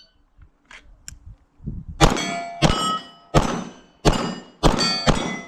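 Pistol shots fired at steel targets, a rapid string starting about two seconds in, with the plates ringing after the hits. These are the shots of a timed steel challenge string.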